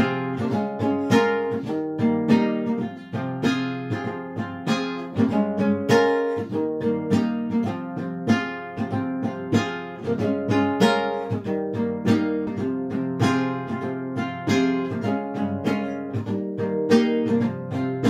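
Background music of a plucked guitar, single notes and chords struck sharply and left to ring.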